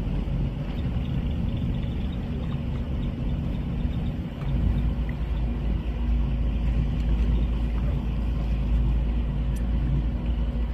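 Steady low rumble of a motorboat's engine running, with wind noise on the microphone.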